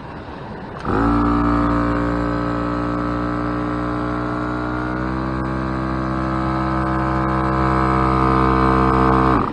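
Dobinsons Zenith 12-volt portable air compressor switching on about a second in and running with a steady motor drone and whine while it pumps air into a tyre. Its pitch shifts slightly about halfway through and it grows a little louder before cutting off sharply just before the end, as the tyre reaches pressure.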